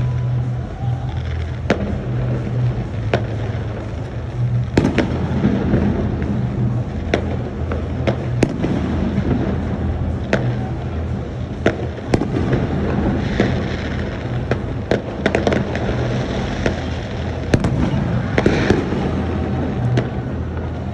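Fireworks going off: irregular sharp bangs about once a second, with spells of crackling bursts, over a steady low hum.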